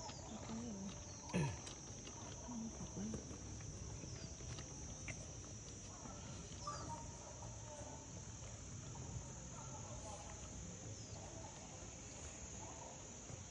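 Insects chirring in a steady high-pitched drone, faint. A few short low squeaks come in the first few seconds, with one brief louder sound about a second and a half in.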